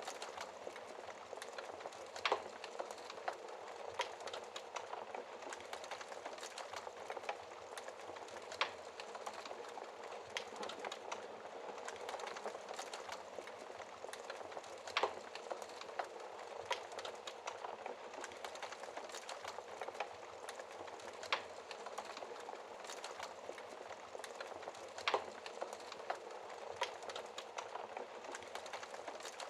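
Wood fire crackling in a fireplace: a steady hiss of small crackles, with a louder sharp pop every five or six seconds.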